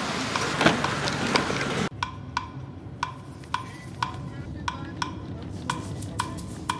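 A brief rushing noise, then from about two seconds in a light percussive beat of short wooden-sounding knocks, as in background music, over a low rumble.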